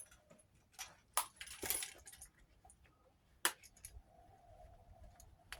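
A bunch of car keys on a ring clinking as it is handled and set down: a few sharp metallic clinks over the first two seconds and one more past the middle.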